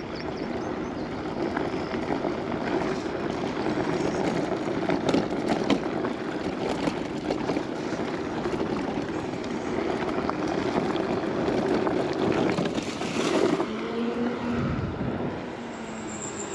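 Gotrax GX1 electric scooter riding over a dirt trail: a steady rough rumble of tyres on dirt with rattling. About three quarters of the way through it eases off and a steady low hum comes in.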